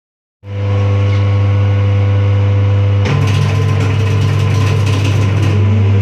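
An 11 kW Hucol single-to-three-phase converter comes on and hums steadily. About three seconds in the air raid siren is switched on with a clunk and a rattling whirr, and near the end the siren's tone starts to rise as its rotor winds up to speed.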